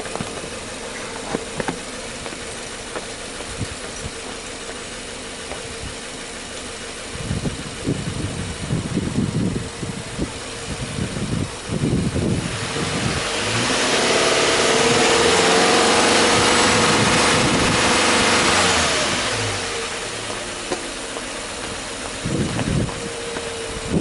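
Subaru Impreza Sport 2.0i's flat-four boxer engine idling steadily, then free-revved with no load about halfway through: the pitch climbs, holds for several seconds and falls back to idle. A few low thumps come before the rev.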